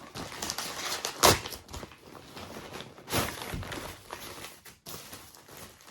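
Parcel packaging rustling and crinkling as it is handled and opened, in a few short noisy bursts, the loudest about a second in and another about three seconds in.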